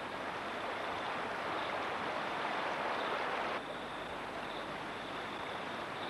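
Steady rush of water running over rocks in a mountain stream, dropping suddenly to a lower level about three and a half seconds in.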